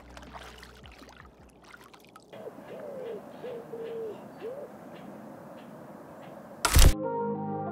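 A few light water drips and splashes, then after about two seconds a calm night ambience in which a bird gives four low hooting notes, each rising and falling, over faint regular ticking. Near the end a short, loud burst of noise cuts in, the loudest sound here.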